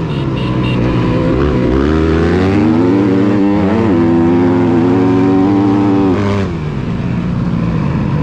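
Dirt bike engine revving hard under racing throttle. The pitch climbs and drops back several times as the rider shifts and rolls off, then falls away about six seconds in as he backs off.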